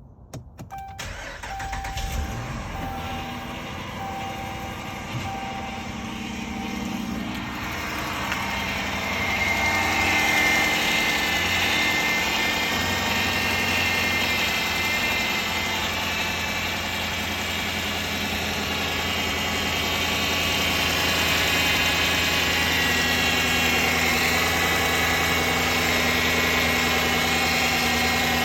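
2011 Dodge Durango's 5.7-litre Hemi V8 starting about a second in and running, with a whine over the engine sound whose cause the owner is trying to identify. The sound grows louder about eight seconds in and stays steady after that.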